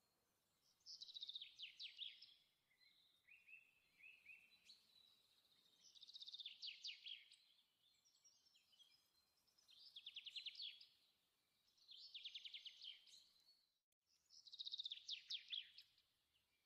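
A songbird singing faintly: a fast, high trill that falls in pitch, repeated five times a few seconds apart.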